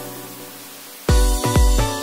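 Background electronic music: a held chord fades for about a second, then a heavy bass beat kicks in at about two beats a second.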